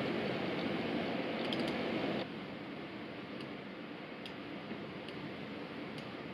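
A few light, scattered clicks from an Apple wireless keyboard and an Apple Magic Mouse, over a steady hiss of room noise that drops a little about two seconds in.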